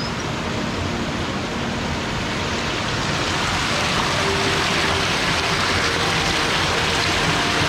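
Small mountain waterfall splashing and rushing steadily, its sound swelling slightly.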